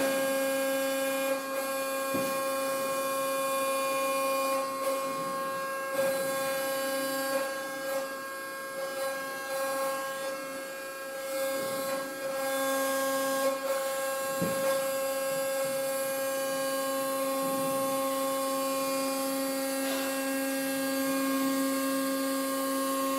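Husqvarna electric demolition robot's motor and hydraulic pump running with a steady pitched hum as it crawls down concrete stairs on its tracks. A few short knocks as it moves.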